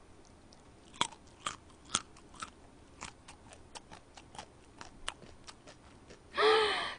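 Close-miked chewing of a mouthful of kimchi stir-fried pork: wet mouth clicks and smacks about twice a second. Near the end comes a short, loud breathy voiced sound.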